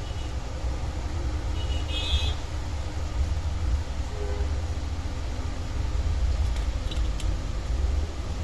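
Steady low background rumble with a faint hiss, and a few small clicks about seven seconds in.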